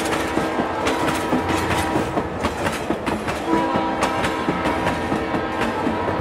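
Train sounds: a steady rhythmic clickety-clack of clicks, with a held horn-like tone sounding twice.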